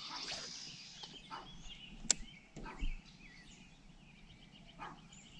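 Quiet outdoor ambience with faint bird calls, and a single sharp click about two seconds in.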